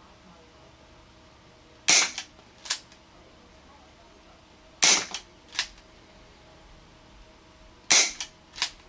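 HFC HG132 green-gas airsoft revolver firing three single-action shots about three seconds apart, each a sharp crack. Each shot is followed by a couple of lighter clicks as the hammer is cocked for the next shot.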